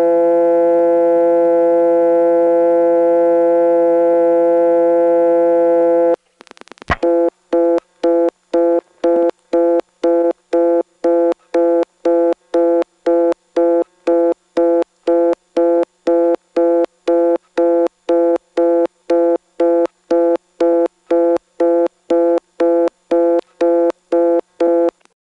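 Dial tone from a Stromberg-Carlson XY step-by-step telephone exchange, held steady for about six seconds. A digit is then dialed with a short burst of clicks, and reorder comes on right away, pulsing about twice a second. The instant reorder shows the digit is blocked, the signature trait of the XY step office.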